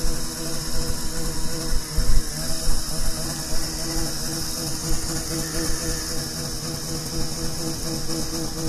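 Snowmobile engine running steadily.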